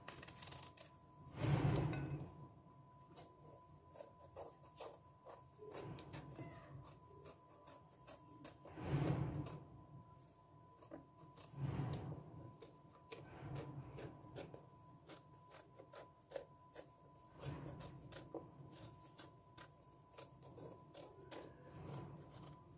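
Kitchen knife peeling the skin off a brinjal (eggplant): many small scraping clicks as the blade shaves strips of peel. A few louder soft knocks, about a second and a half in, near nine seconds and near twelve seconds.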